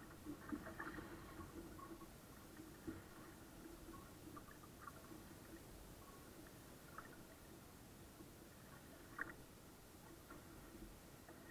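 Near silence: a faint, muffled wash of water against a sailboat's hull, with a few soft ticks about 3, 7 and 9 seconds in.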